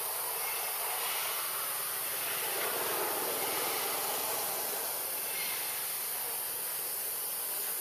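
Steady, even hiss of forest background noise, strongest in a constant high-pitched band, with no distinct event standing out.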